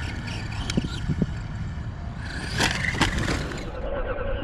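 RC car's brushed electric motor and drivetrain whining as it is driven, with the tyres scraping over loose dirt and a few sharp knocks of the car landing and bouncing.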